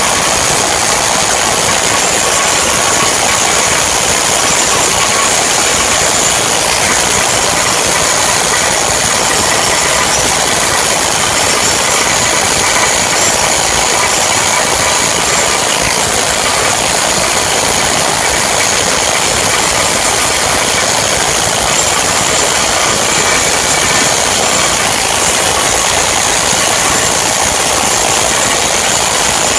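Flux-cored arc welding on stainless steel: the arc runs as a loud, steady, unbroken hiss.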